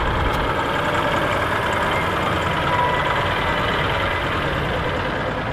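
Volvo heavy truck's diesel engine running steadily at low speed, an even noise with no changes in pitch.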